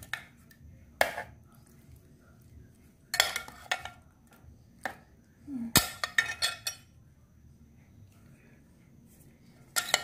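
A kitchen utensil clinking and scraping against a bowl and baking dish as a chunky filling is spread over batter. The sound comes in separate bursts: one short clink about a second in, two longer runs of scraping and clinks in the middle, and another just before the end, with quiet gaps between.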